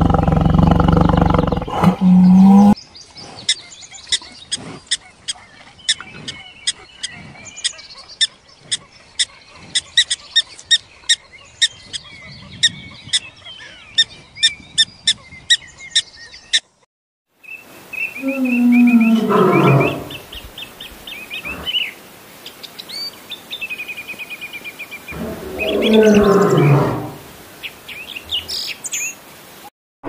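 A run of animal calls in separate clips: a crocodile's low growl for the first few seconds, then a long string of sharp clicks and high chirps from a black-tailed prairie dog. After a short silence come two long calls falling in pitch, with high chirps between them, from an unseen animal.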